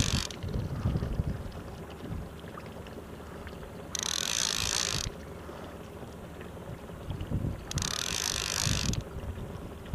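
Trolling reel being cranked in three short bursts of about a second each, a hissing whir, as a hooked zander is reeled in. Under it, a steady low rumble of wind on the microphone and the boat's outboard running at trolling speed.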